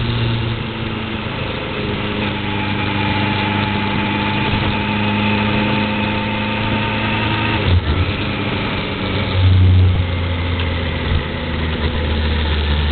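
Motorcycle engine running steadily, heard from on board while riding; about eight seconds in the engine note drops to a lower pitch and holds there.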